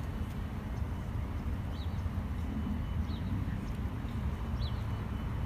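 A small bird gives a short, high chirp three times, about a second and a half apart, over a steady low rumble that is the loudest thing heard.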